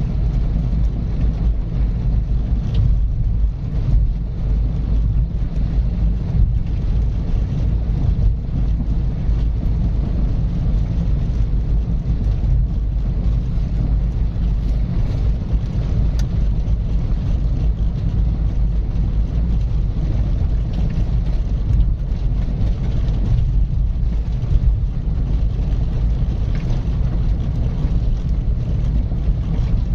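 A car driving steadily along a road: a continuous low rumble of tyre and engine noise with no changes in speed.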